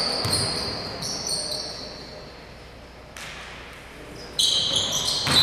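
Basketball bouncing on a gym floor and sneakers squeaking on the hardwood during play, with a loud burst of squeaks near the end.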